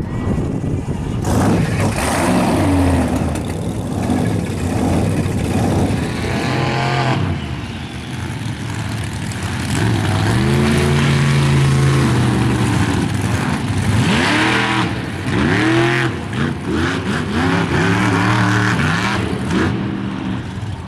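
Several monster truck engines revving hard, their pitch climbing and falling again and again as the trucks drive across the dirt.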